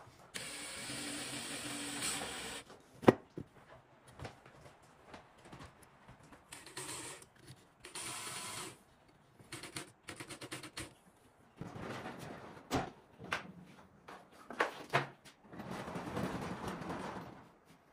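Cordless drill running in several short runs of one to two and a half seconds, driving a screw and drilling holes into wood, with knocks of tools and wood being handled in between.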